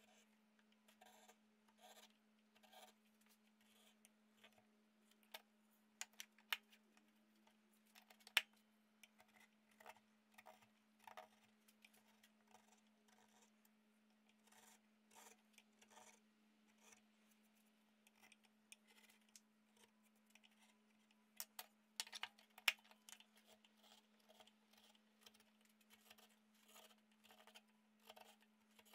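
Hand carving gouge paring shavings from the bowl of an olive-wood spoon blank: a steady run of short, faint scraping cuts, with a few sharper clicks now and then, over a faint steady hum.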